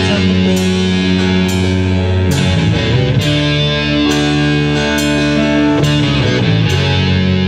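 Rock band rehearsing an instrumental passage: electric guitars hold sustained chords over a drum beat, with a sharp hit about once a second.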